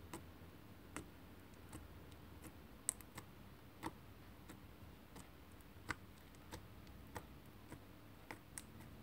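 Fingertips pressing and poking into slime, giving short, sharp clicks and pops at uneven spacing, about one or two a second, the loudest about three seconds in. A faint steady low hum lies beneath.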